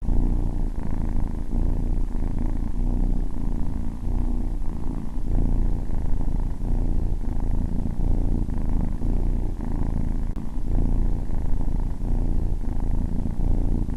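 A cat purring loudly and steadily, the purr swelling and easing in a slow rhythm with its breathing.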